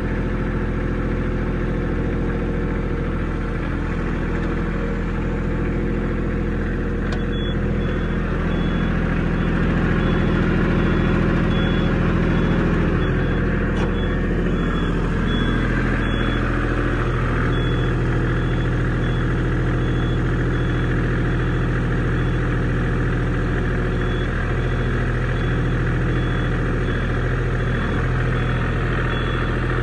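New Holland T1510 compact tractor's three-cylinder diesel engine running steadily, its note shifting slightly about halfway through.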